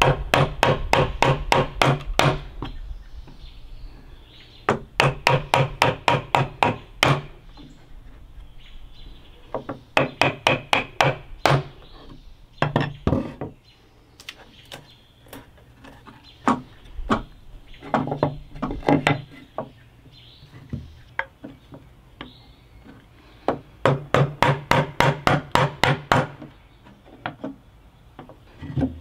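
Chisel being driven into a hardwood board with quick, light mallet taps to chop out a dado, in bursts of about five ringing taps a second lasting a couple of seconds each, with short pauses between bursts.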